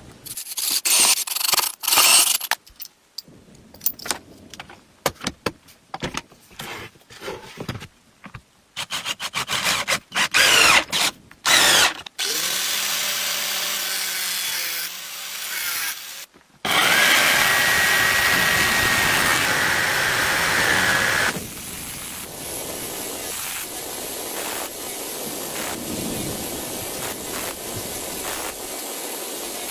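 Power tools at work in a series of short edited clips. The first dozen seconds are choppy bursts and clicks, followed by longer steady runs. The loudest run, about halfway through, has a high whine in it.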